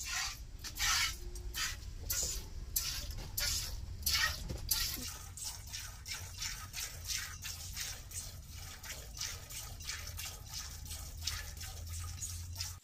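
A cow being milked by hand: jets of milk squirting into a stainless steel pot in a steady rhythm, about two squirts a second, quickening a little about halfway through.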